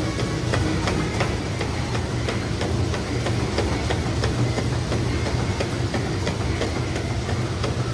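Treadmill running at speed under a runner: the steady hum and rumble of the motor and belt, with the regular thud of running footfalls on the deck.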